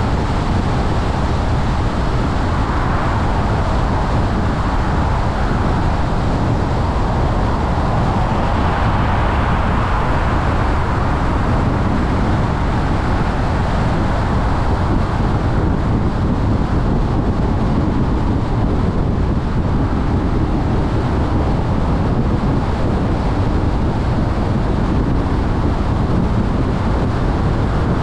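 Car driving at highway speed: a steady rush of tyre and road noise mixed with wind noise on the microphone.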